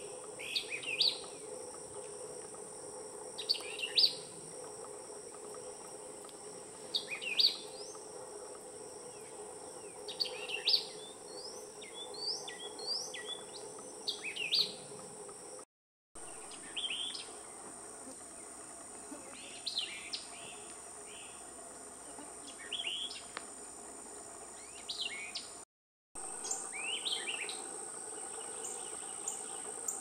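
Wild songbirds calling, with short clusters of quick chirping notes every few seconds, over a steady high-pitched insect drone. The sound cuts out briefly twice.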